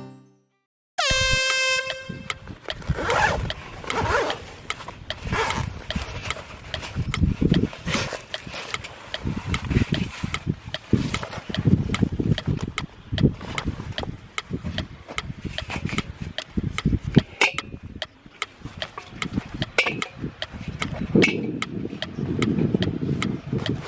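Handling of a Coleman Fire Disk stainless-steel fire pit being set up, with irregular metal clicks, knocks and rustling. A short ringing tone sounds about a second in and fades away.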